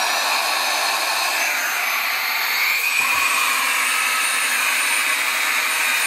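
Baseus A3 cordless handheld car vacuum running on the first of its two speeds: a steady high motor whine over a rush of air.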